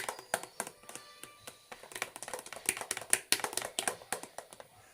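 A utensil clicking and tapping rapidly and irregularly against a cup while slime is stirred and mixed.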